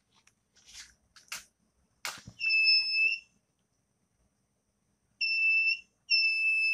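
Buzzer of a homemade BC547-transistor fire alarm circuit sounding a high-pitched tone in three beeps, the last one longest, as its light sensor picks up the flame of a lit match. A few short scrapes come before the first beep.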